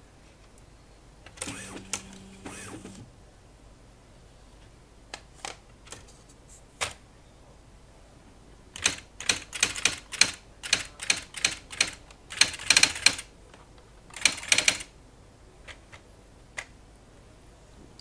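IBM Wheelwriter electronic typewriter running: a short motor whir about a second and a half in, a few single clicks, then a quick run of sharp printwheel hammer strikes and carriage steps from about nine to fifteen seconds, with two more clicks near the end.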